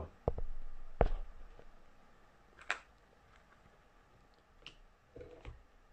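Small plastic deli cup being handled and its snap-on lid worked off: a few light plastic clicks and knocks, the sharpest about a second in, with a faint rustle near the end.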